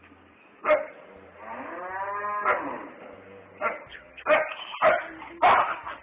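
Dog barking: a string of short, sharp barks, with one longer drawn-out call that rises and falls in pitch between the first barks.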